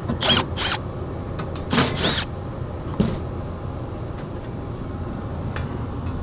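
Steady low hum of a running gas furnace. Over it come short scraping, rustling handling noises in the first two seconds or so and a single click about three seconds in.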